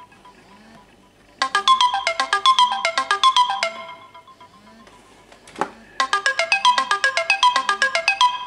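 Samsung Galaxy phone ringtone: a short, quick run of bright plucked-sounding notes that plays, pauses for about two seconds and repeats. A single sharp click falls in the pause.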